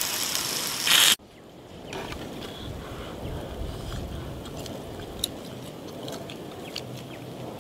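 Pan-fried dumplings sizzling in an electric frying pan, cutting off abruptly about a second in. Then a quieter low background hum with a few faint clicks as the dumplings are eaten.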